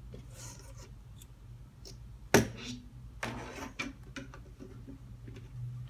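Small parts and tools being handled on a work surface: one sharp knock about two seconds in, then a stretch of rustling and a few light clicks, over a low steady hum.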